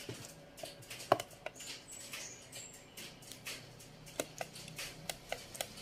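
Faint, irregular clicks and taps of hands handling cables and an MP3 player while hooking it up to the amplifier's input, with a few brief high-pitched squeaks.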